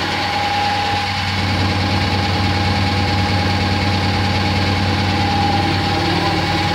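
Automatic macaroni and pasta making machine running steadily: a continuous low motor hum with a constant high whine and a fast, even mechanical chatter.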